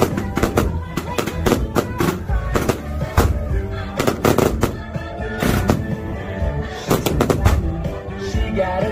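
Fireworks going off in a rapid, uneven string of sharp bangs, several a second, over loud music.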